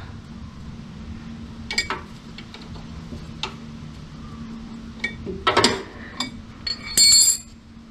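Scattered sharp metal clicks and clinks of a wrench working the starter motor's lower hex nut under a car, then a wrench clangs and rings as it lands on the concrete floor near the end. A steady low hum runs underneath.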